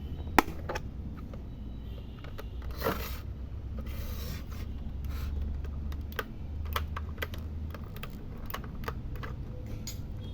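Scattered sharp plastic clicks and a few scrapes from a flip-card alarm clock being handled and its cards flipped by hand, over a low steady hum. The loudest click comes about half a second in.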